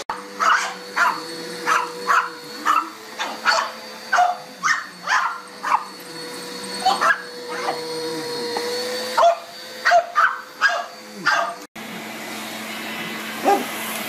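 Dog barking repeatedly, about two barks a second with a short pause midway, at an upright Bissell PowerForce vacuum cleaner running with a steady motor whine. Near the end the sound cuts to a different vacuum's lower hum, with a single bark.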